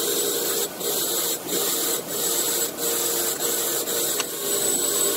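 Rusty steel trailer ball being pressed hard against the spinning wire wheel of an old Ingersoll-Rand bench grinder: a steady scraping hiss that swells and dips about every two-thirds of a second, over the motor's steady hum. Under the heavy pressure the motor barely slows, the sign that its new run capacitor is working.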